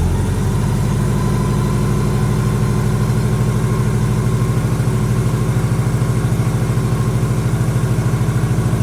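A 1987 Honda GL1200 Goldwing's flat-four engine idling steadily on choke just after a cold start, with a fast, even pulse.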